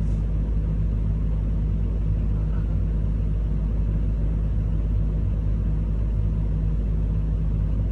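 Diesel engine of a Komatsu PC210 excavator running steadily, heard from inside the operator's cab as an even low rumble.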